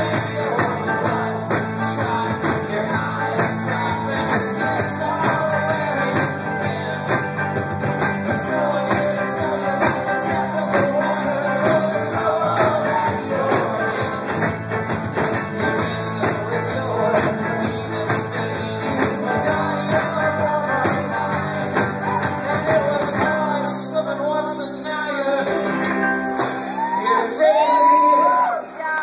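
Live folk-rock band playing loudly, with electric guitar, drums, tambourine and several voices singing and shouting together. About 24 seconds in the bass and drums drop out, and a voice holds one long high note near the end.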